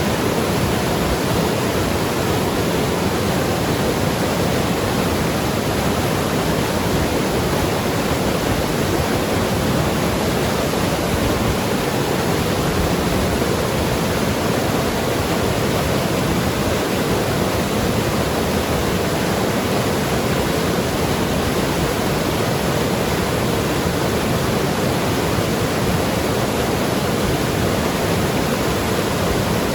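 Mountain river rushing and gurgling over rocks, a steady, unbroken flow.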